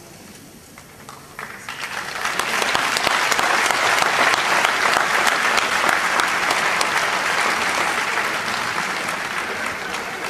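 Audience applauding. The clapping swells in about a second and a half in after a brief lull and keeps up steadily, easing slightly near the end.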